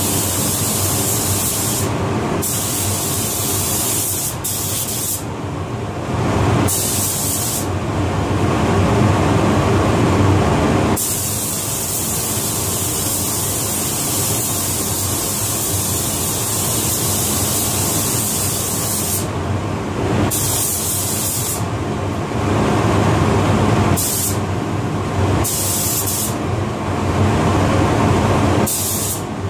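Paint spray gun hissing in repeated bursts as the trigger is pulled and released between passes, over the steady hum of the paint booth's air handling.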